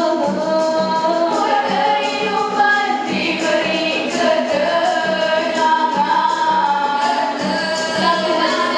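Female nasyid group singing in harmony into microphones, with light percussion keeping the beat.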